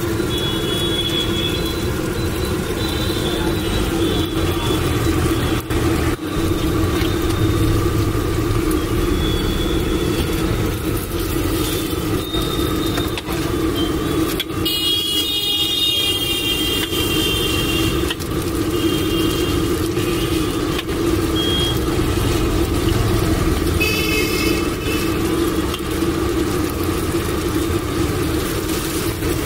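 Busy street ambience: steady traffic noise with several short vehicle horn toots, the longest about halfway through, over the hiss of oil deep-frying in an iron kadai.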